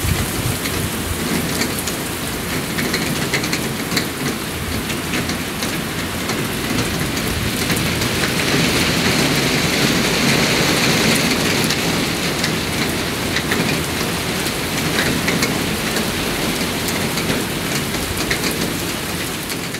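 Heavy thunderstorm downpour: a steady hiss of rain with many sharp drops clicking close by, swelling somewhat about halfway through, over a low rumble of gusting squall wind.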